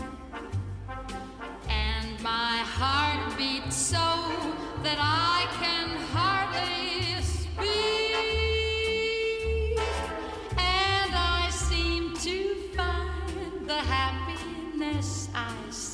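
Big-band jazz music: trumpets, trombones and saxophone playing phrases over a steady bass line, with a long held note about eight seconds in.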